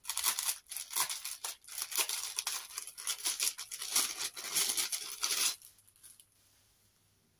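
Thin clear plastic packaging bag crinkling and rustling as it is opened and a folded piece of fabric is pulled out of it; the rustling stops about five and a half seconds in.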